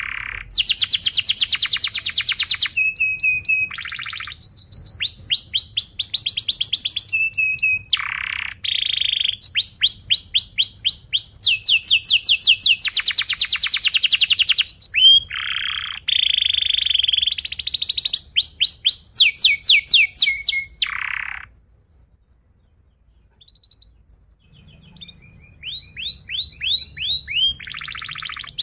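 Domestic canary singing a long, continuous song of tight, rapid rolls and repeated chirps and whistles. It breaks off for about three seconds near the end, then starts a new roll.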